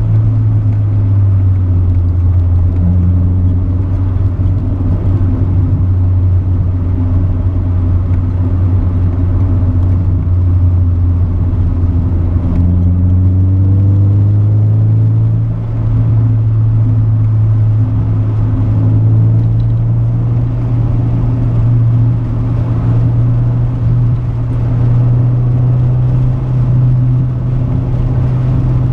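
Honda Civic EG5's D16Z6 1.6-litre SOHC VTEC four-cylinder engine running through a Sportex exhaust while driving. The engine note is a steady rumble that climbs in pitch about halfway through, then holds higher.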